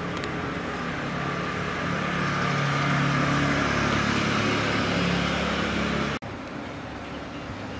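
A motor running steadily with a low hum and hiss, growing a little louder, then cut off abruptly about six seconds in.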